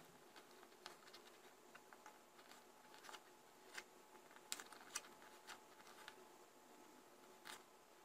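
Faint, irregular clicks of a kitchen knife meeting a plastic cutting board as dried figs are chopped into small pieces.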